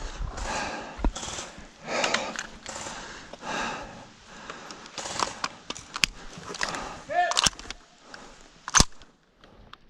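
Indistinct voices with scattered sharp clicks and knocks, the loudest a single sharp crack near the end.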